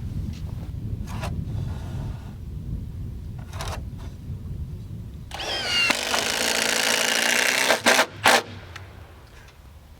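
A power drill driving a fastener into the boathouse's wooden frame, whirring with a wavering pitch for a couple of seconds about halfway through. Two sharp knocks follow right after. It is the last fastener of the frame.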